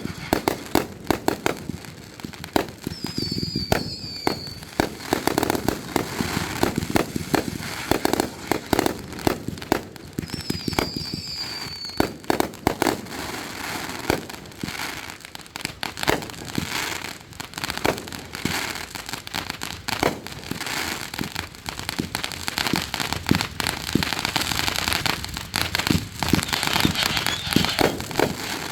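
Fireworks going off in rapid succession: many sharp bangs and pops with crackling, and twice a short high whistle falling in pitch. The crackle thickens near the end.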